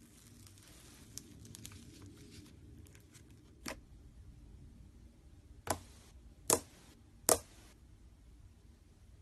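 Faint rustling, then four sharp clicks or knocks spaced about a second apart, the last three the loudest: small objects being handled and set down.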